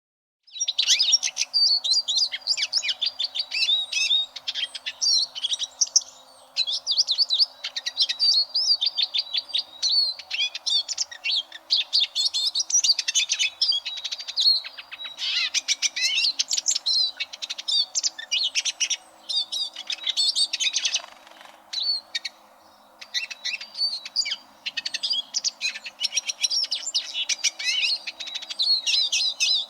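Eurasian siskin singing a long, fast twittering song of chattering notes and buzzy trills, with a few short pauses.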